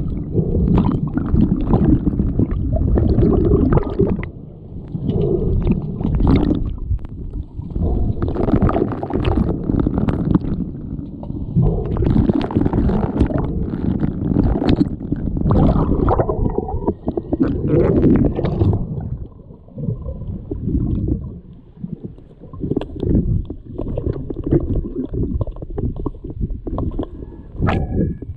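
Pool water churning and gurgling around swimmers playing underwater hockey: a muffled low rumble that surges and fades irregularly, with occasional sharp clicks.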